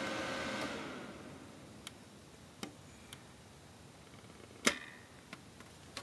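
Dell Inspiron 530 desktop's cooling fans running at full speed in a failed start, which the owner blames on the motherboard, then dying away within about a second as the power button is pressed. A few light clicks follow, with one sharp knock about two-thirds of the way through.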